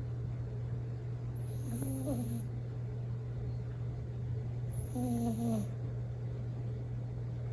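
Bichon Frise dog snoring: two snores about three seconds apart, each about a second long with a wavering, whiny pitched tone, over a steady low hum.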